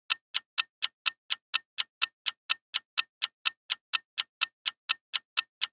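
Quiz countdown timer sound effect: a clock ticking steadily, about four sharp ticks a second.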